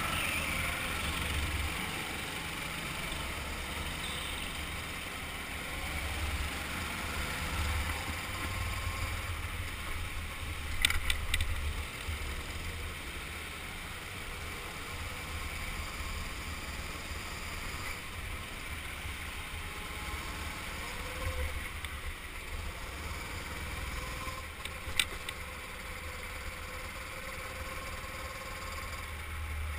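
Go-kart engine running as the kart laps an indoor track, a steady low rumble that shifts in pitch with the throttle. A brief cluster of sharp knocks comes about eleven seconds in, and a single knock near twenty-five seconds.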